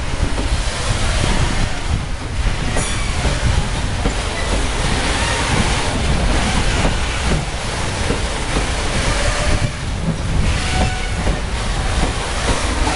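Loaded bauxite gondola wagons of a freight train rolling past close by: a steady rumble and clatter of steel wheels on the rails, with brief faint wheel squeals and a sharp click about three seconds in.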